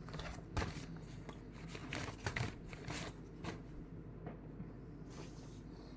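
Cross-stitch kit packaging being handled: scattered rustles and light taps, busiest in the first three and a half seconds, then sparser and quieter.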